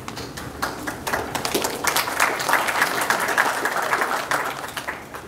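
Audience applauding, a dense patter of many hands clapping that builds about a second in and dies away near the end.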